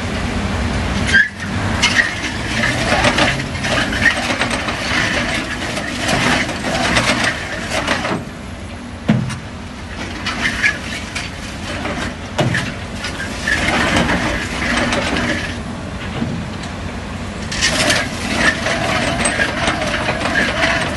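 Heavy construction drilling rig running, its engine humming steadily beneath long stretches of harsh mechanical noise, with a few sharp knocks.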